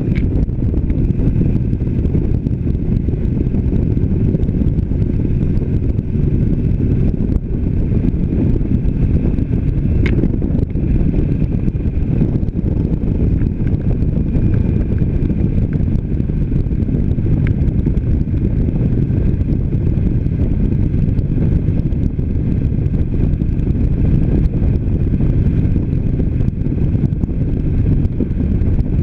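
Harley-Davidson Sportster Iron 883's air-cooled V-twin engine running steadily at cruising speed, mixed with wind noise on the microphone.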